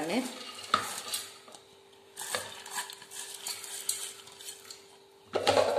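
Whole green gram (mung beans) rattling and clicking as a hand stirs them in a plastic bowl and tips them into a pressure cooker pot, with a faint steady hum behind.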